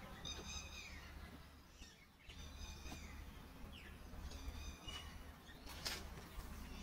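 Birds chirping in short repeated phrases over a steady low rumble, with a brief sharp noise near the end.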